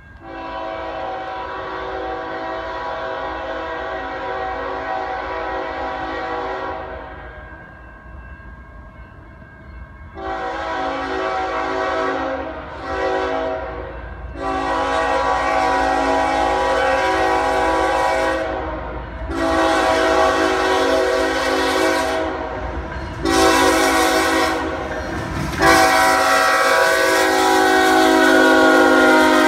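CSX freight locomotive sounding its multi-chime air horn as a chord of several tones in a series of long and short blasts, the grade-crossing signal, growing louder as the train approaches. Under the horn, the rumble of the train and its wheels on the rails builds as the locomotive passes near the end.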